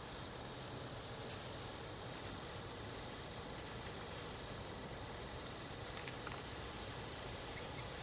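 Quiet woodland ambience: a steady hiss with a few brief, high chirps scattered through it, the loudest about a second in.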